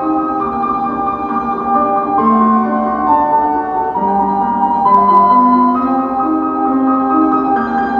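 Slow piano music accompanying a ballet barre exercise, with held notes and chords changing about once a second.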